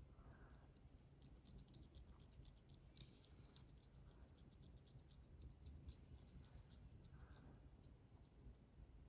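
Long false fingernails scratching through a child's hair and flaky, dandruff-covered scalp: faint, rapid little scratches, several a second.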